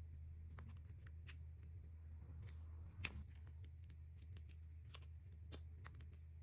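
Faint, scattered small clicks and crackles from slime and makeup being handled, over a low steady hum, with one sharper click about three seconds in.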